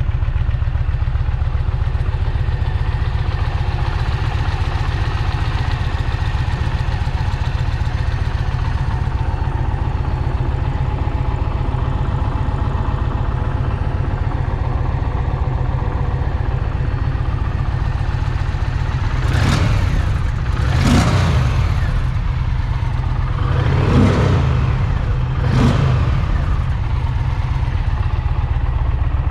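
2021 Indian Challenger's liquid-cooled PowerPlus V-twin idling steadily, blipped four times in quick revs in the last third.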